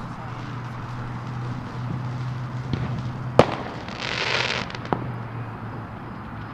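Fireworks going off: a sharp bang about three and a half seconds in, then a short burst of crackling hiss lasting under a second, with a couple of smaller pops around it.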